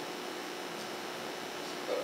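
Steady room noise: an even hiss with a faint steady hum, and a brief start of a man's voice near the end.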